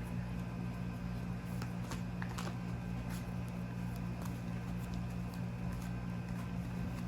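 Steady low electrical or fan-like hum, with a few faint, light clicks or taps.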